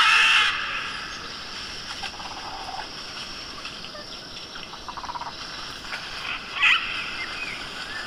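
Forest ambience: a steady high hiss with a few short animal calls. The loudest calls come right at the start and about two-thirds of the way in.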